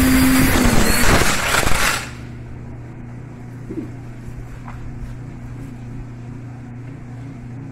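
Black & Decker GrassHog 800 W electric string trimmer running and cutting grass with a steady motor whine, then cutting off suddenly about two seconds in, leaving only a faint low hum. It stops because the spinning line has caught its own power cord.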